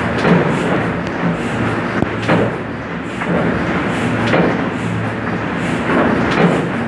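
Hand-fed sheet die-cutting machine running, its press closing with a sharp clack about every two seconds over a steady mechanical drone as sheets are cut.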